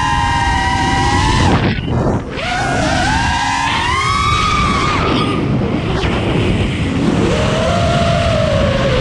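FPV racing quadcopter's brushless motors whining, the pitch rising and falling with the throttle; about two seconds in the whine drops away briefly, as on a throttle chop, then climbs back.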